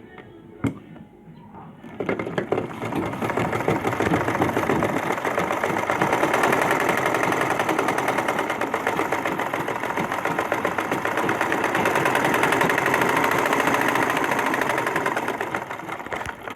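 Butterfly sewing machine running a test seam after its bobbin case tension was tightened. A single sharp click comes first. About two seconds in, a loud, fast, even stitching clatter starts and keeps going, then tapers off near the end.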